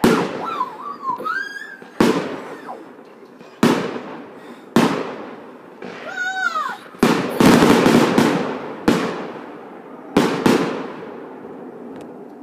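Fireworks going off in a series of sharp bangs, about eight in twelve seconds, each dying away in a long echo. A dense burst of crackling comes about seven seconds in.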